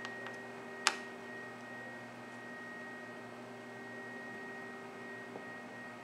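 A single sharp plastic click about a second in as the G-Shock watch module is worked into its translucent resin case by hand, over a steady electrical hum.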